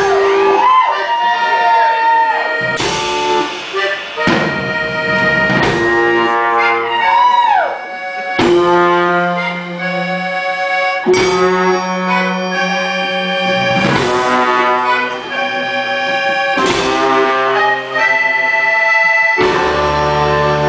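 Live band music with brass horns playing a tune full of sliding notes over a steady low bass line, punctuated by loud hits about every three seconds.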